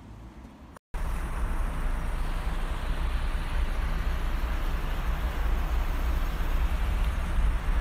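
Wind buffeting a handheld phone's microphone: a loud, steady, fluttering low rumble with a hiss above it. It starts suddenly about a second in, after a short quieter stretch.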